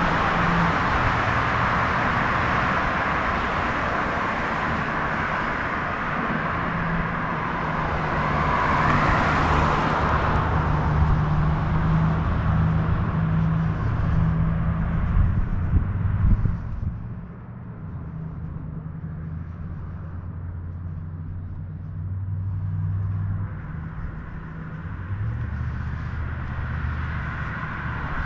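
Street traffic: vehicles passing, with tyre noise and low engine hum, the loudest pass about nine to ten seconds in. The noise drops suddenly about two-thirds of the way through and stays quieter, with engine hum continuing.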